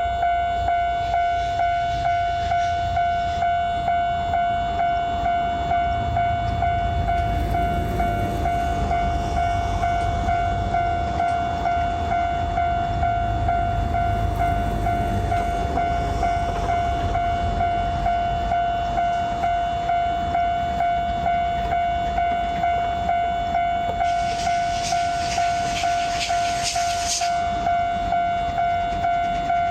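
Japanese level-crossing warning bell ringing its steady, evenly repeated 'kan-kan' tone, with a train rumbling past underneath. A brief hissing rush rises near the end.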